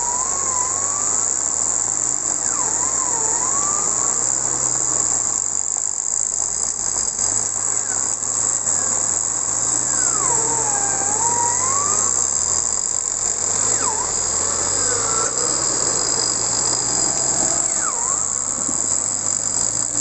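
A steady high-pitched drone of forest insects, with single whistled calls gliding up and down every few seconds, over the low hum of a Nissan Terrano 4x4's engine running slowly.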